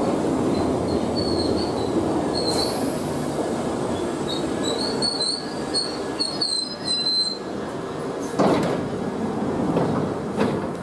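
London Underground 1973 stock Piccadilly line train running into a platform and braking. Its rumble fades while short high-pitched squeals sound for the first seven seconds or so. About eight seconds in, a brief louder burst of noise comes as the train stands and its doors open.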